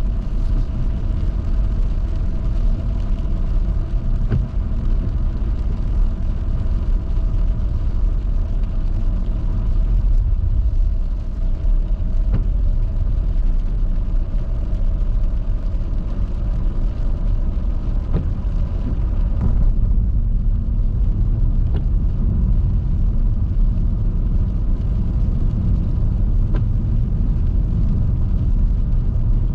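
Steady low rumble of a car driving at highway speed, heard from inside the cabin, with no change in engine pitch.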